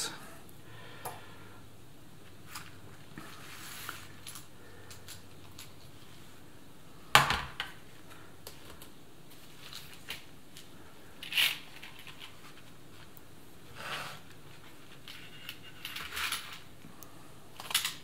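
A handful of separate clicks and clacks of small plastic and metal parts of an IBM Model F keyboard being handled as it is taken apart, the loudest about seven seconds in.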